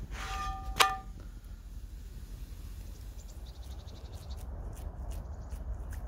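A single metallic clang with a short ringing tone just under a second in, from a metal object being struck, over a low steady rumble. From about halfway through, a run of light, quick high clicks.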